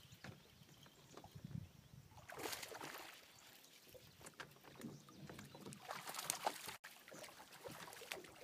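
Hooked largemouth bass splashing at the surface as it is reeled in toward the bank, in two bouts of splashing a few seconds apart.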